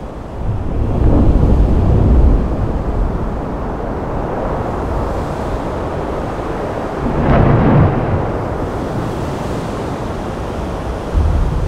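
Rough sea and wind, with two heavy, booming wave crashes about a second in and about seven seconds in over a steady roar of water.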